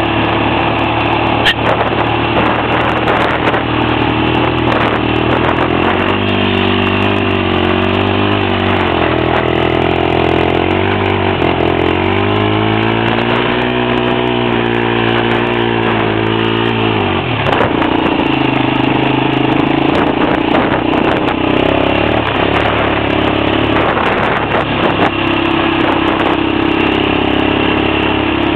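Honda Recon 250 ATV's single-cylinder four-stroke engine running under way. From about six seconds in, its pitch rises and falls with the throttle, then drops sharply a little past the middle and runs on more evenly.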